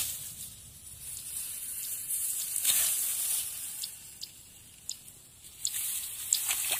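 Dry rice stalks rustling as they are handled and pushed through, a hissing swish that swells and fades, with scattered short ticks of snapping stalks in the second half.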